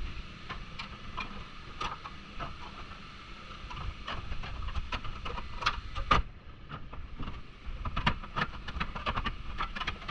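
Sheet-metal rear body panel of a Honda CR-V being worked into place against the car body: irregular metallic knocks, taps and clanks as the panel is pushed and bumps against the opening.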